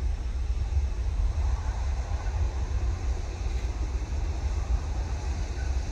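Twin-engine Airbus A320-family jet airliner climbing away just after takeoff, its engines a steady, distant rumble, mixed with wind noise on the microphone.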